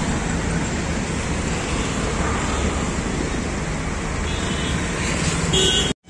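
Steady road traffic noise, with a couple of short high tones near the end.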